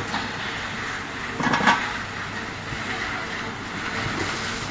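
Gas-fired drum tea roasting machine running: a steady rushing noise over a low hum, with a brief louder rustle about a second and a half in.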